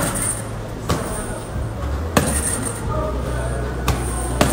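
Gloved punches landing on a hanging teardrop heavy bag, about five sharp hits at irregular spacing.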